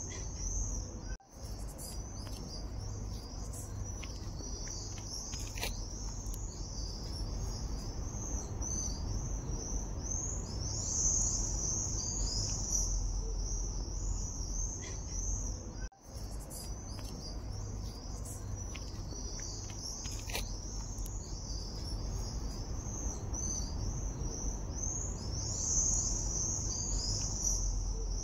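A steady chorus of high-pitched chirping insects, cricket-like, over a low steady rumble. The sound cuts out for a split second twice: about a second in and again about sixteen seconds in.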